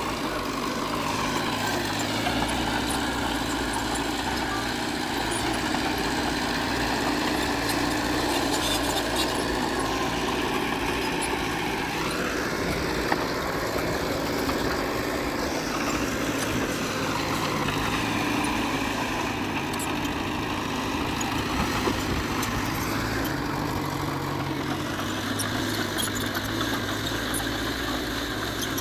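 Diesel engine of heavy earthmoving machinery running steadily, its speed rising and falling a few times as the machine works.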